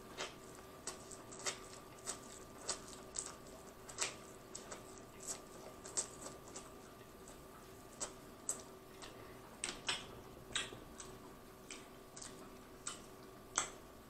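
Faint, close-up eating sounds from chewing corn on the cob: short wet mouth clicks and smacks coming irregularly, about one or two a second.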